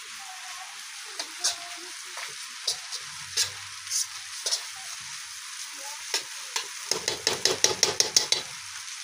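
Chow noodles sizzling in a frying pan while a spatula stirs and scrapes through them, with scattered clinks against the pan. About seven seconds in comes a fast run of spatula strikes, around eight a second, for a second and a half.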